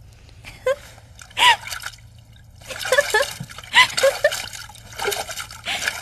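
Bathwater splashing in a tub in several short bursts as a person is washed by hand.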